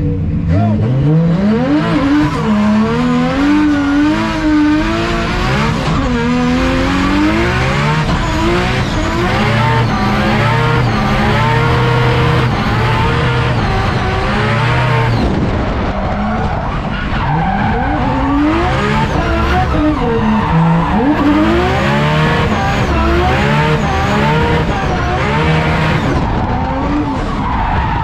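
Drift car with an RB26DETT twin-turbo straight-six, its engine revving up and down again and again through a drift run, over continuous tyre squeal and skidding.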